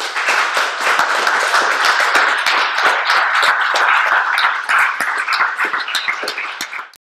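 Audience applauding, many hands clapping steadily; it cuts off suddenly near the end.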